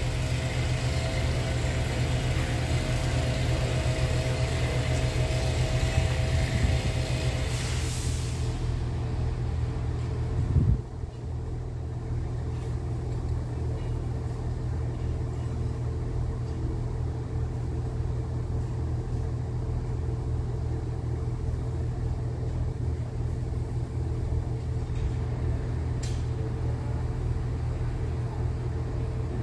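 Diesel engines of a double Class 158 multiple unit idling steadily as it stands with doors closed, waiting at a signal. A higher hiss fades out about eight seconds in, and the sound drops a step about eleven seconds in.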